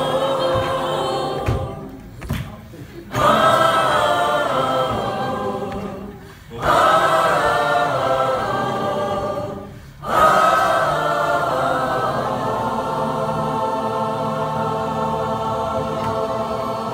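Large mixed choir singing together in several short phrases with brief breaks between them, ending on one long held chord that fades away near the end.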